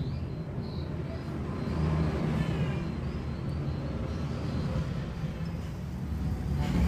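Low, steady rumble of motor vehicle noise.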